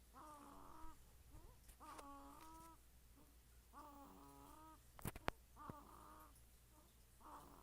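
A sleeping pet snoring softly, each breath a short, high whistling squeak, about one every two seconds. Two faint clicks about five seconds in.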